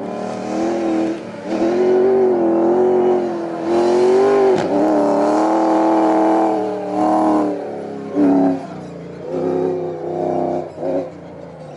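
Toyota Hallspeed Hilux T1 rally truck's engine revving hard under acceleration, its pitch rising and falling through gear changes. After about eight seconds it drops to quieter, shorter rises in revs.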